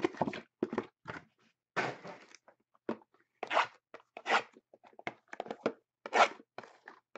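Hands tearing open the wrapping of a box of trading cards and handling the cardboard: a series of short tearing and crinkling noises with brief pauses between them.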